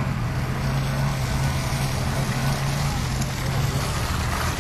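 Off-road vehicle engine running steadily at low revs, a constant low hum.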